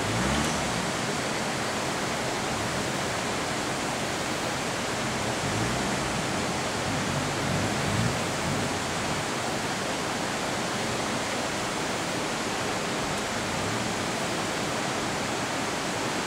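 A steady, even rushing noise like running water fills the sound. Beneath it, a Toyota Hilux pickup's engine rises in pitch briefly three times as the throttle is worked on a steep off-road climb.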